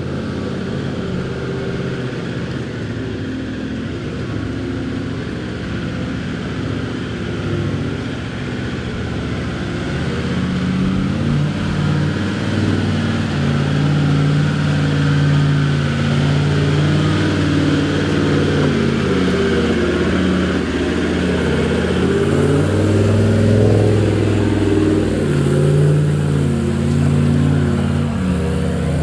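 Engines of 79 series LandCruiser 4WD utes working through deep mud ruts, revving with the pitch rising and falling as the throttle comes on and off. The engine sound grows louder about halfway through as a ute passes close by.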